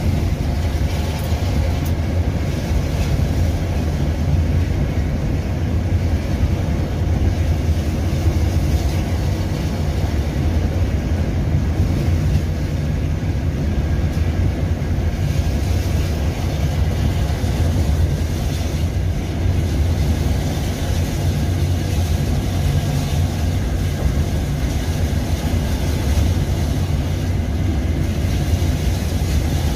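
Steady low rumble of a bus's engine and tyre noise, heard from inside the cab while it cruises along a highway.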